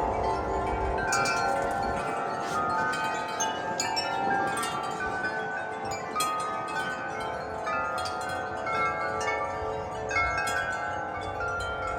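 Wind chimes ringing in gusty wind, struck irregularly so that many ringing tones overlap, with some wind rumble on the microphone at the start and again near the end.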